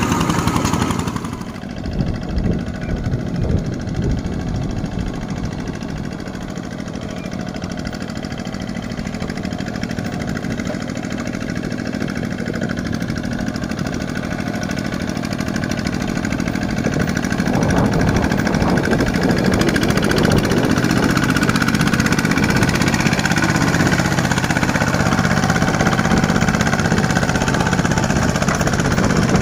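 Two-wheel walking tractor's single-cylinder diesel engine running under load as it tows a loaded trailer through deep mud. It gets louder over the middle of the stretch as it draws closer, then holds steady.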